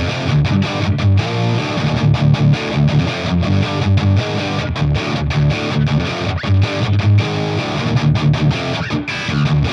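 Lyman LT-300H semi-hollow T-style electric guitar with two single-coil pickups, played through an amp as strummed chords in a continuous rhythmic passage with many sharp pick strokes.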